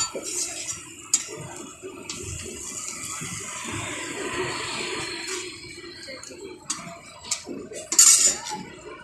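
Roti frying in oil on a large flat steel griddle, hissing, with a metal spatula clicking and scraping against the griddle; the loudest scrape comes about 8 seconds in.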